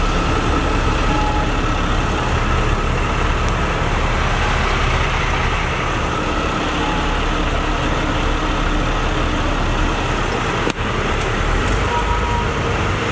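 Converted school bus engine running steadily at low speed, a continuous low rumble heard from inside the bus cab. A single sharp click about ten and a half seconds in.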